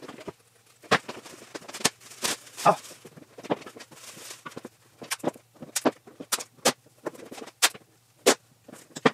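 Thin plastic sheeting crinkling, then masking tape pulled off the roll and torn in a run of short, sharp rips, several a second apart.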